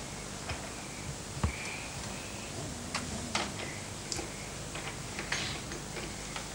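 Draughts pieces clicking and tapping as they are moved and set down on the board: a scattered handful of light, short clicks over a steady background hiss.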